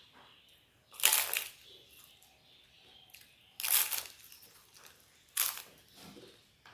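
Close-up eating sounds: three loud, crisp crunches of papad (a fried lentil wafer) being bitten and chewed, with quieter wet chewing between them.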